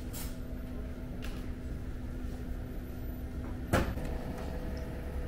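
A single sharp clunk, like a cupboard door or hard lid shutting, about two-thirds of the way through, over a steady low hum.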